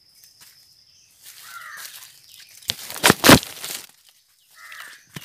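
Rural outdoor ambience: a steady high insect buzz that stops about a second in, and a short call heard twice. A loud crunching rustle comes about three seconds in.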